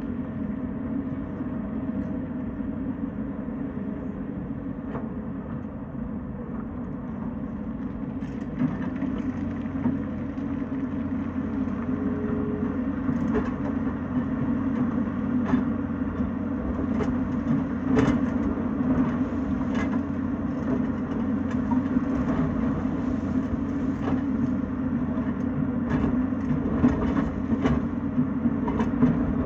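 Tata Hitachi excavator's diesel engine running steadily. From about eight seconds in come scattered sharp knocks and clatter, more frequent toward the end.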